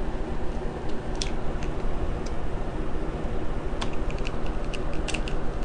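Light scattered clicks and ticks of a hand screwdriver and small screws going back into the plastic base of a Dell Inspiron 1525 laptop, coming quicker near the end, over a steady low rumble.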